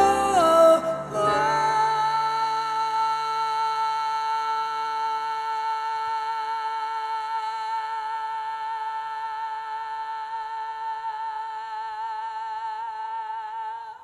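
Background song: a singing voice moves through a short phrase over backing, then the backing drops away about a second and a half in and the voice holds one long wavering note with vibrato that stops abruptly near the end.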